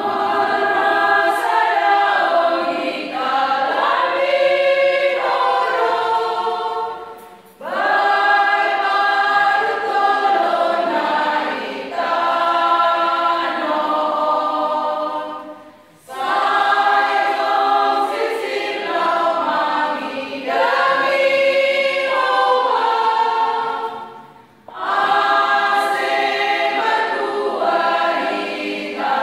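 A women's church choir singing a hymn, unaccompanied, in long phrases of about eight seconds with a short breath between them.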